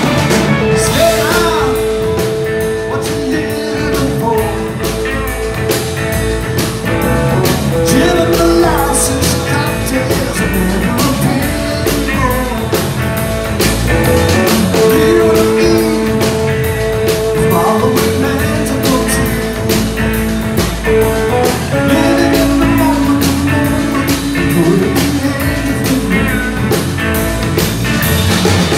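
Live rock band playing at full volume: electric guitars and drum kit, with long held notes over a steady beat.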